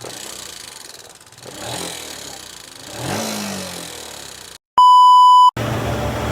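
Yamaha LC135 single-cylinder four-stroke motorcycle engine running and revved up twice, with the knock of a worn connecting rod from neglected engine oil. It cuts off, a loud steady beep tone sounds for about half a second, and music starts near the end.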